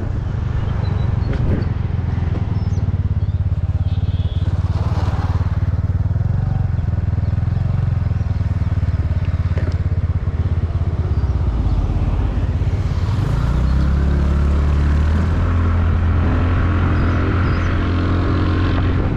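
Motorcycle engine running while riding, a steady low note that changes pitch about two-thirds of the way through, settling lower and louder.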